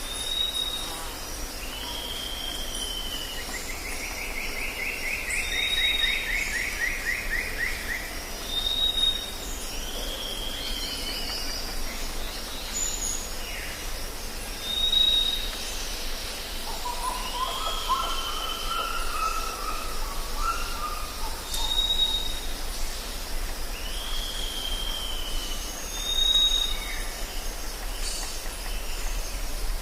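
Jungle birds calling over a steady high hiss. A short high whistle repeats about every three to four seconds, each one followed by a lower down-slurred note. A descending trill comes a few seconds in, and a chattering phrase comes midway.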